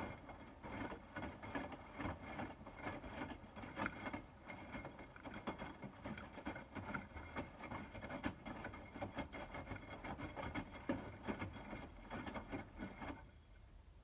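Hotpoint WMFUG 942 front-loading washing machine drum tumbling a load of bedding in sudsy water during a heated 60° wash: splashing, sloshing and patter of wet laundry, with a faint steady high whine. The tumble starts suddenly and stops about a second before the end as the drum pauses.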